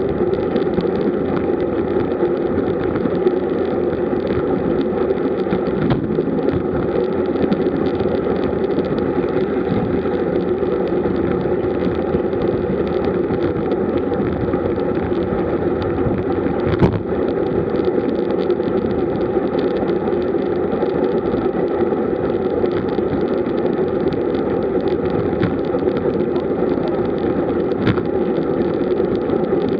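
Steady rush of wind and tyre noise on a bike-mounted camera riding with a road-bike group at about 37 km/h, with one sharp knock about seventeen seconds in.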